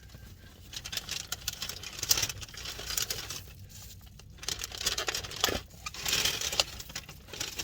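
Paper takeout bag and food wrappers rustling and crinkling in irregular bursts as the food is taken out and unwrapped by hand.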